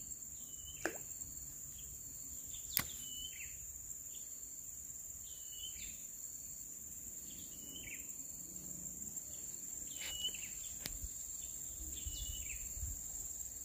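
Steady high-pitched insect drone, with a bird giving short calls that drop at the end every couple of seconds, and a few faint clicks.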